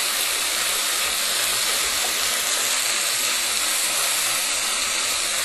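Marinated chicken pieces sizzling in hot oil in a pan on high heat: a steady frying hiss.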